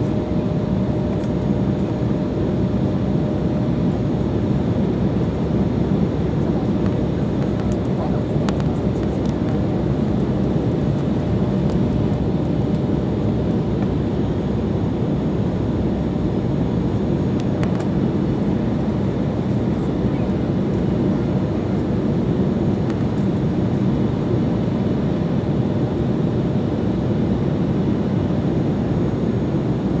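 Jet airliner cabin noise heard from a seat by the wing: a steady, low rush of engine and airflow noise while the plane descends toward landing.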